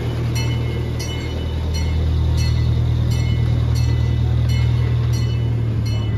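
Miniature park train No. 382 running with a steady low drone from its locomotive. Regular, evenly spaced clicks come from the wheels passing over rail joints.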